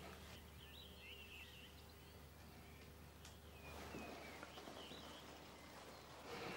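Faint birds chirping and twittering over quiet outdoor ambience, in two short spells, one near the start and one just past the middle, with a steady low hum underneath.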